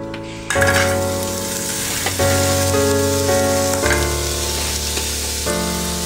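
Small cubes of food sizzling as they fry in a pan, the sizzle starting about half a second in and running on steadily.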